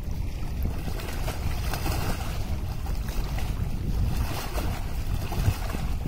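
Wind blowing across the microphone with a steady low rumble, over small lake waves washing and lapping, the wash swelling a little now and then.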